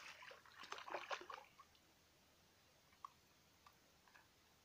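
Hooked pike thrashing at the surface close to the bank, splashing water in a rapid cluster of splashes that dies away after about a second and a half. A few faint clicks follow.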